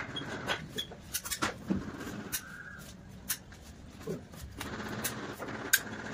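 Scattered sharp clicks and knocks from hand work fixing wall panels, irregular in timing, the loudest one about three quarters of the way through.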